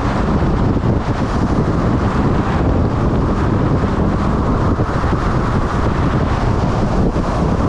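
Riding a motorcycle at speed: steady wind noise on the microphone over the bike's engine and road noise.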